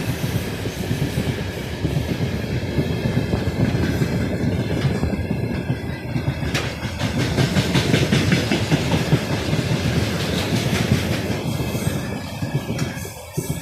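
Train wagons rolling past on the rails: steady wheel rumble with a rhythmic clickety-clack over the rail joints. The sound falls away near the end as the last wagons go by.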